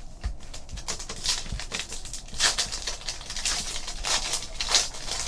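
Trading card packs and cards being handled: a string of crinkling rustles and light clicks, with a few louder crackles.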